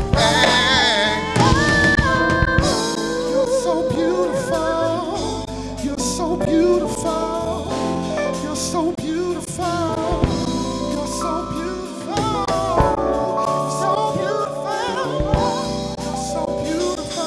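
Live band music: a man singing the lead vocal, his voice wavering and sliding in pitch, over a drum kit and the rest of the band.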